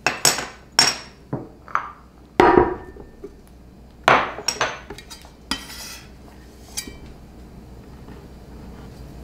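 A stone garlic mortar set down on a wooden cutting board and minced garlic moved into it with a cleaver: a string of separate knocks and clicks, with a short scrape about five and a half seconds in.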